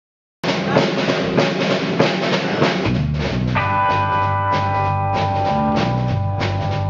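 Live soul and funk band playing, cutting in suddenly about half a second in with the drum kit alone. Bass and a held chord join about three seconds in.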